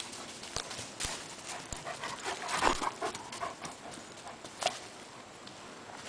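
A German Shepherd dog moving through forest undergrowth: brush rustling and dry twigs and sticks cracking under its feet, loudest in a burst about two and a half seconds in, with one sharp snap a little before the end.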